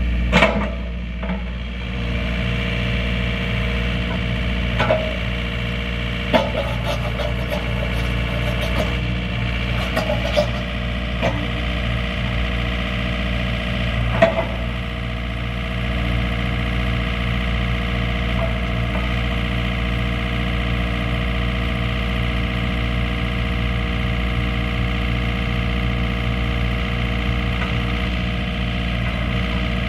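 Takeuchi TB240 mini excavator's diesel engine running steadily under hydraulic load while the boom, arm and bucket are worked. A few sharp clanks and knocks come in the first fifteen seconds.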